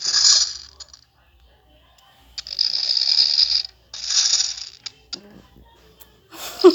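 A man snoring in long, noisy breaths. Two snores come close together, then after a pause of about a second and a half two more. A brief voice cuts in near the end.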